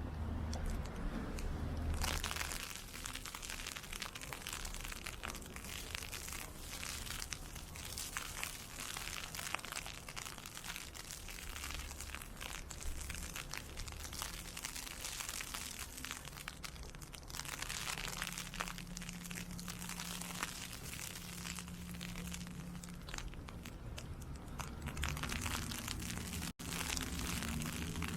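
Continuous crunching and crackling of a walk through an ice-pellet storm: boots on snow and ice, and wind-blown pellets. There is low wind buffeting underneath.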